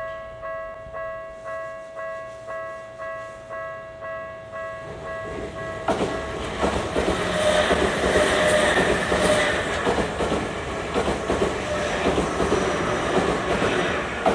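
Japanese level-crossing warning bell ringing with a pulsing tone about twice a second. About six seconds in, a Tokyu Toyoko Line train passes over the crossing, and its loud wheel-and-rail noise with rapid clatter all but covers the bell.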